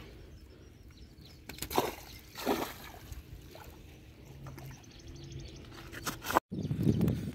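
Shallow water sloshing and splashing as a fish is handled in a mesh keep net at the water's edge, with two louder splashes about two seconds in. After an abrupt break near the end, a louder low rumble.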